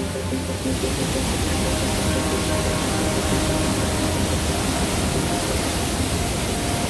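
Wapama Falls pouring over boulders right beside a footbridge: a steady, dense rush of falling water.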